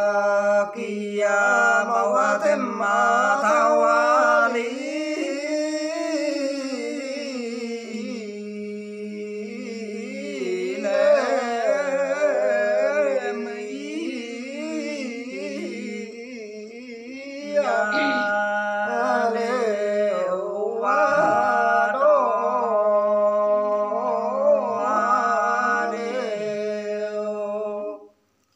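Unaccompanied hà lều folk singing: one voice in long, sliding, ornamented phrases, with a steady low note held underneath. The singing stops abruptly near the end.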